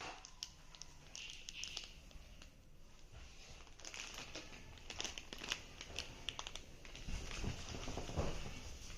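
Camera-box packaging being handled: plastic wrapping crinkling and rustling with scattered small clicks, and a few soft bumps near the end.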